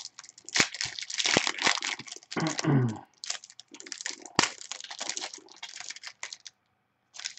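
Plastic wrapper of a trading card pack crinkling and crackling as it is torn open and handled, with many sharp clicks; it stops shortly before the end.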